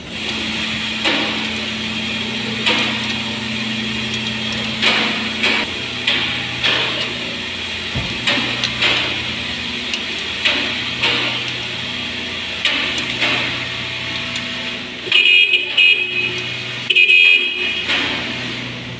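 A spanner working a car's belt-adjuster bolt, with a sharp metal click every second or so over a steady background hum. Two loud, high-pitched blasts come near the end, about a second apart.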